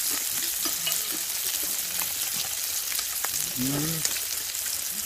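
Beef rib meat sizzling on an electric grill pan: a steady frying hiss with scattered crackling pops of fat.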